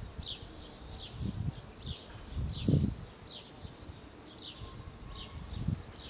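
A bird chirping over and over, each chirp short and falling in pitch, about two or three a second. A few low muffled rumbles come through, the loudest a little under three seconds in.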